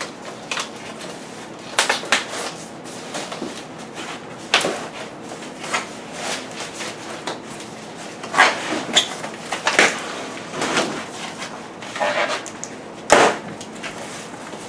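Irregular knocks, clicks and short scrapes of things being handled and moved, the sharpest at about eight and a half seconds and again near thirteen seconds.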